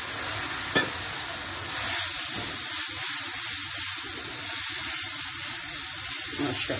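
Onion-tomato masala sizzling in oil in a kadai while a spatula stirs and scrapes it. A little water has just gone in to keep the masala from burning, and the pan steams. One sharp knock comes about a second in, and the sizzling grows louder about two seconds in.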